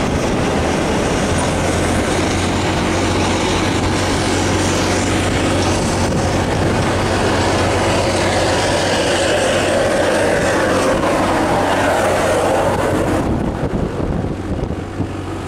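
A motorcycle on the move: its engine runs with a steady hum under loud rushing road and wind noise, which eases slightly near the end.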